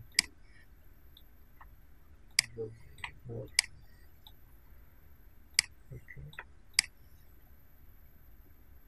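Computer mouse clicking: five sharp single clicks spaced one to two seconds apart, with a few faint low voice sounds between them.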